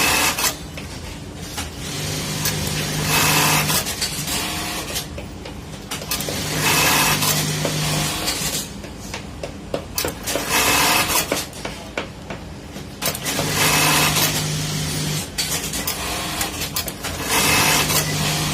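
1903 electronic button-stitch sewing machine running its stitch cycles: bursts of rapid stitching over a steady motor hum, each about two seconds long, repeating about every four seconds with quieter pauses between.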